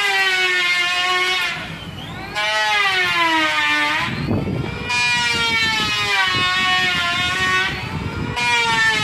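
Wood planing machine whining, its pitch sagging and bending in a wail-like tone that is heard as calling 'Ema'. The wail comes in about four long stretches, each breaking off after two or three seconds before starting again.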